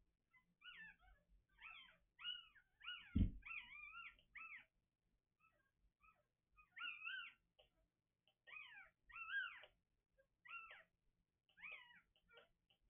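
Newborn puppies squealing: thin, high, mewing cries that rise and fall in pitch, coming in quick bunches again and again. A single soft thump about three seconds in.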